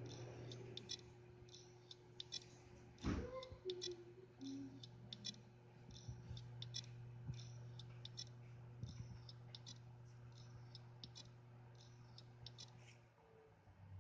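Hard disk drive spinning with a low hum while its heads click in clusters about once a second: the drive spins but fails to start. There is a brief thump about three seconds in, and the hum stops near the end.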